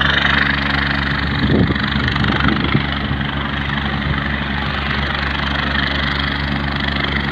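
Landed helicopter running steadily, its engine and rotor making a constant, even drone. A few brief low bumps come about two seconds in.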